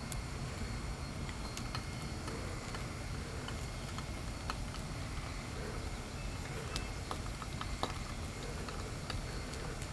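Bonfire of cardboard boxes burning, with scattered crackles and pops over a steady low rumble.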